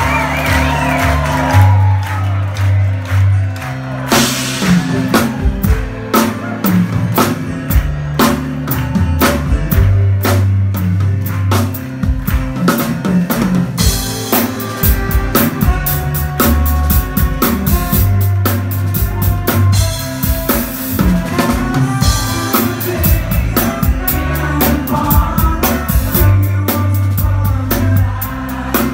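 Live rock band with horns playing loud, the drum kit dense and prominent with sharp snare and kick hits in a steady rhythm over a bass line.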